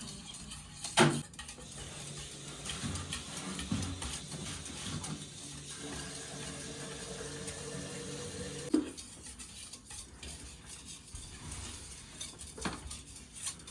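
A utensil stirring batter in a bowl, scraping against its sides, with a few sharp knocks of utensil on bowl: about a second in, near the middle, and again near the end.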